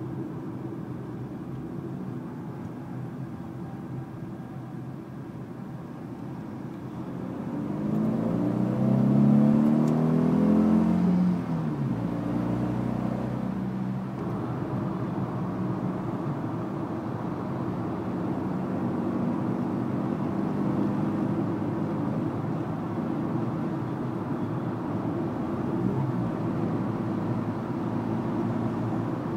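Fiat 500 TwinAir's two-cylinder engine, heard from inside the cabin while driving. It runs steadily, then about eight seconds in climbs in pitch and grows louder under acceleration. Around twelve seconds in it drops back and settles into a steady cruise with road noise.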